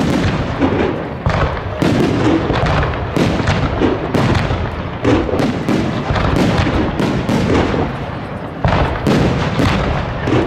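Fireworks display: a rapid, continuous barrage of shell bursts and cracks, several a second, over a steady rumble of explosions.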